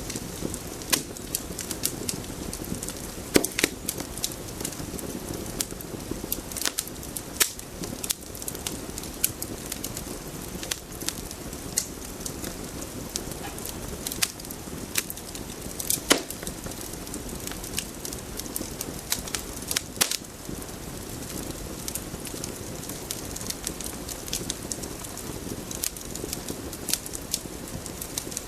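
Irregular crackling and popping, sharp clicks scattered unevenly over a steady hiss, with a few louder pops.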